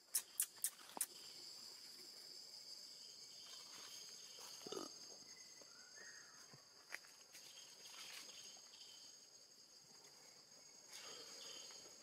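Forest insects droning steadily at a high pitch, with four sharp clicks in the first second and a brief lower sound about five seconds in.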